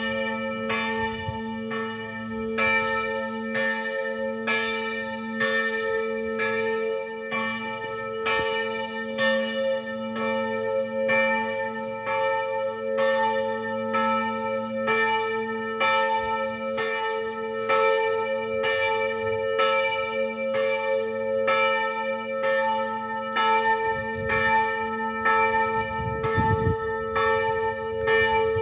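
Church bells ringing in a continuous peal, with a stroke about every three-quarters of a second over a steady, lingering hum.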